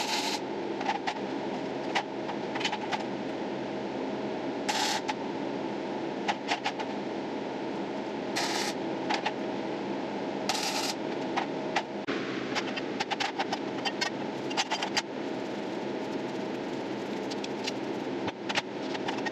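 Arc welder tack-welding square steel tubing: short bursts of crackling arc, each well under a second, struck several times over a steady background hiss.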